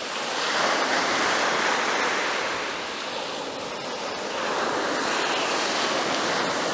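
Surf washing on the shore: a steady rushing that swells about half a second in, eases around three seconds in and swells again.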